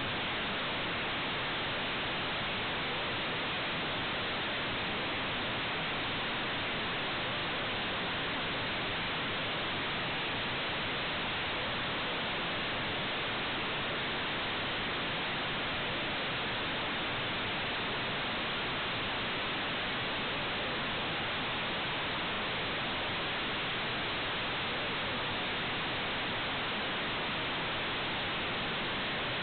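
Steady, unchanging static hiss with no other sound picked out, the noise floor of an IP security camera's audio channel.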